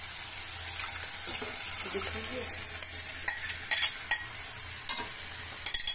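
Boiled chana dal going into a hot metal kadhai of spinach masala, which sizzles steadily. A metal spoon clinks and scrapes against the pan several times in the second half.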